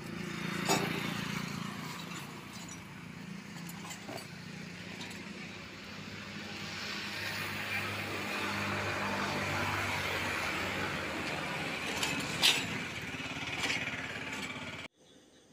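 Steady engine hum with a low drone, swelling a little in the middle, and a few sharp metallic knocks, the loudest near the end. The sound cuts off suddenly just before the end.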